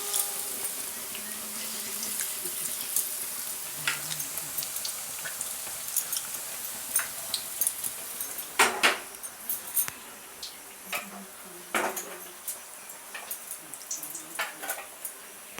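Kitchen utensils and dishes clinking and knocking at irregular moments, loudest about halfway through, over a steady hiss that fades a little past the middle.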